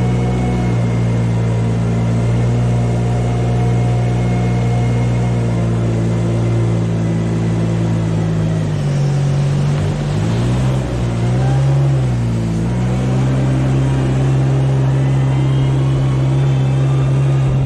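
A large engine running at a steady speed, its pitch dipping and recovering a couple of times around the middle, as when it comes under load, then settling again.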